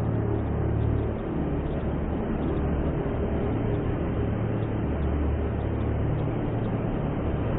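Steady, deep underwater-style rumble with a low drone underneath, even throughout, without breaks or sudden sounds.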